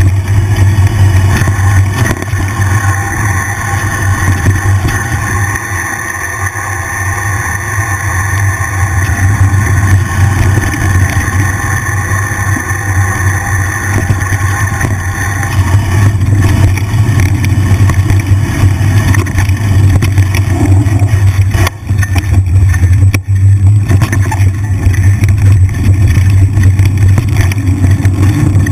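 Mountain bike rolling along a dirt singletrack, heard through a GoPro on the bike or rider: a loud, steady rumble of wind and trail vibration with scattered knocks and rattles.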